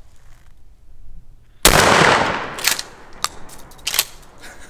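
A single 12-gauge shotgun blast about one and a half seconds in, ringing away over most of a second. A few sharp clicks and knocks follow.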